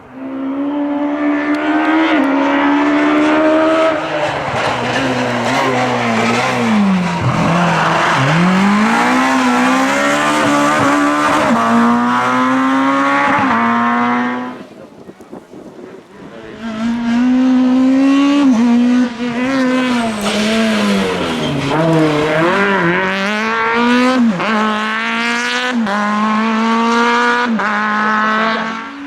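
Naturally aspirated Groupe F2000 rally car engines at full attack, revving hard with the pitch climbing through each gear and dropping sharply on shifts and braking. The sound drops away about halfway through, then another car comes in revving the same way.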